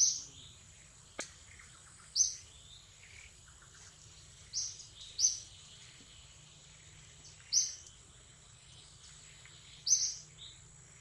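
A forest bird chirping: short, sharp, high-pitched calls, about six of them, spaced two to three seconds apart, over a faint steady high whine.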